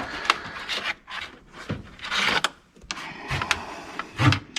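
Hand work on boat wiring: a series of short scraping rubs and sharp clicks as wires and terminals are handled and fitted, with a dull thump near the end.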